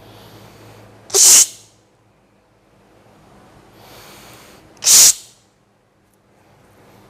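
A person's two sharp, explosive bursts of breath, about four seconds apart, each one preceded by a softer audible in-breath.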